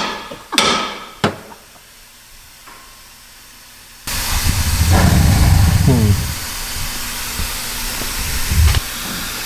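Hammer blows on steel suspension parts, three ringing metallic strikes in the first second and a half. About four seconds in, a loud steady hiss with a low rumble abruptly takes over.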